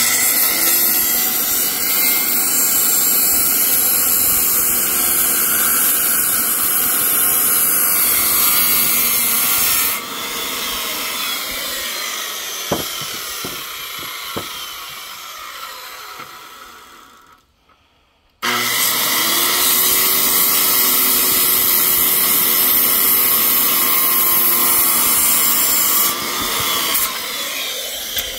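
Corded circular saw cutting through a thick reclaimed-wood post in two passes, each about eight to ten seconds of steady loud running under load. Between the passes there is a quieter stretch with a couple of knocks, and a short silence before the second cut starts.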